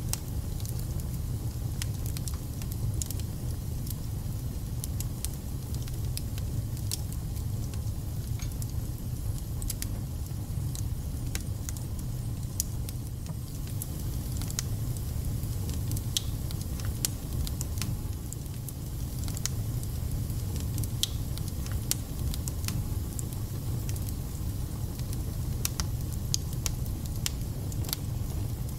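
Wood fire burning in a fireplace: a steady low rumble of the flames with many scattered crackles and spits from the logs.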